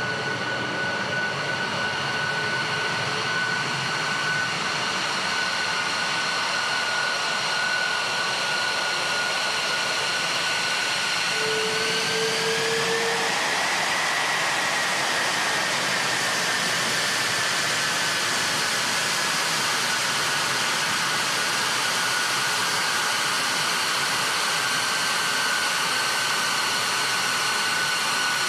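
Twin Pratt & Whitney F119 turbofans of an F-22 Raptor taxiing: a loud rushing jet noise with a high whine that rises in pitch about twelve seconds in, then slowly sinks back.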